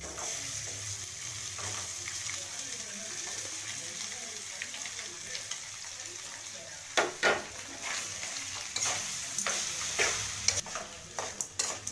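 Steady sizzling hiss from a hot aluminium kadai of pepper-rice tempering as cooked rice goes in. From about seven seconds in, a metal ladle clinks and scrapes against the pan as the rice is stirred.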